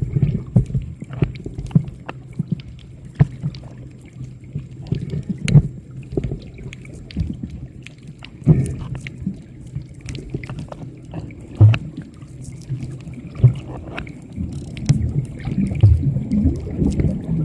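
Muffled underwater sound picked up by a camera: a low rumble of moving water with a faint steady hum, sharp knocks and clicks throughout, and the water noise swelling near the end.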